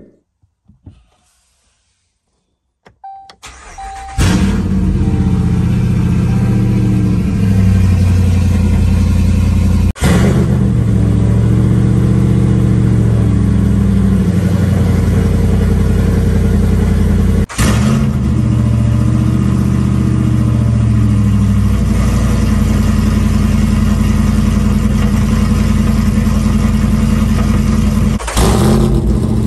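Ram 1500 Hemi V8 with a Greene Racing-tuned HPT camshaft and long-tube headers cold-starting: a short beep, then the engine fires about four seconds in and settles into a loud, steady cold idle. The sound drops out briefly three times where the recording cuts.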